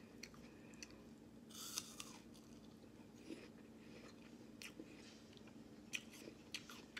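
A person quietly chewing food with the mouth closed, with faint crunches and mouth clicks now and then over a faint steady hum.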